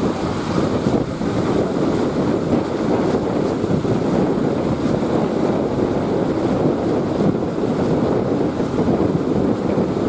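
Wind buffeting the microphone in a steady rush, over the wash of a rough, choppy sea.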